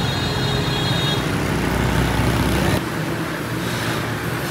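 Steady motor-vehicle noise: a low engine rumble mixed with street traffic, shifting in tone about three seconds in.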